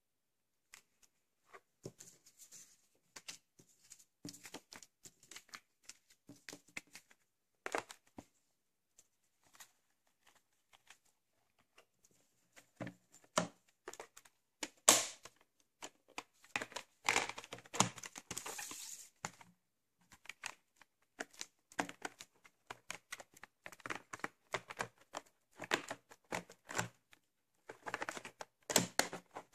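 Hands handling a VHS cassette, a white plastic clamshell case and a cardboard sleeve: scattered plastic clicks and taps with rustling. There is a sharp click about halfway through, and a longer rustle follows it.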